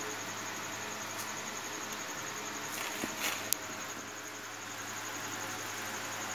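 Steady background hiss with a low hum and a faint, fast, high-pitched pulsing throughout; a few faint clicks about three seconds in.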